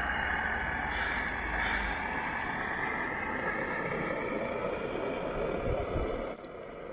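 Steady rushing roar of a gas canister camp stove burner under a steaming pot, with a faint tone slowly falling in pitch; it drops away about six seconds in.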